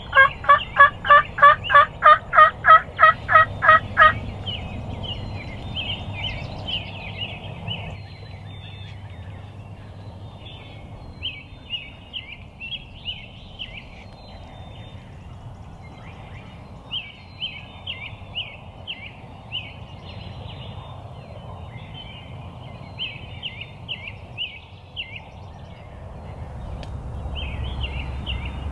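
Wild turkey calling: a loud run of about a dozen yelps, about three a second, that stops about four seconds in. After it, fainter clusters of high chirping come every few seconds.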